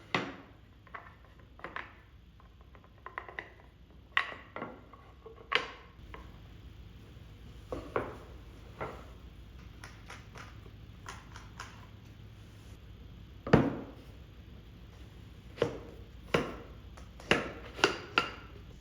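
Scattered sharp knocks and clinks of wooden parts and hand tools being handled and set down during assembly, some with a short metallic ring. The loudest knock comes a little past the middle, and several come in quick succession near the end.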